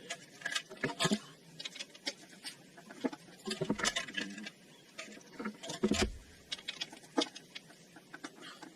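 Irregular clicks and light metallic taps of hand tools and parts being handled, with a heavier knock about six seconds in.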